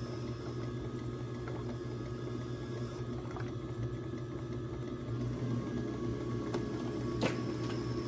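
Electric potter's wheel running with a steady motor hum while a trimming tool scrapes the upside-down clay pot on the wheel head. One faint click about seven seconds in.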